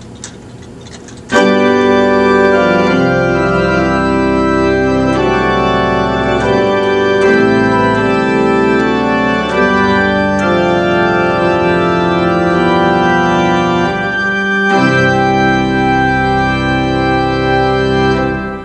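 Full principal chorus of the Great division of a C. B. Fisk tracker pipe organ, playing a passage of loud sustained chords that change every second or so. It starts about a second in, breaks briefly and re-enters near the end, then stops just before the close.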